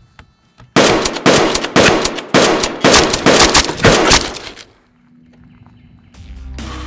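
A rapid volley of loud gunshot sound effects, about three or four shots a second, running for around four seconds before stopping. Music comes in near the end.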